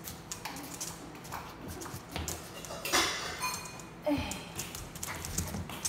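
Scattered clicks and knocks of a small dog's claws and slippered footsteps on a hardwood floor. A sharp clink with a brief ring comes about three seconds in.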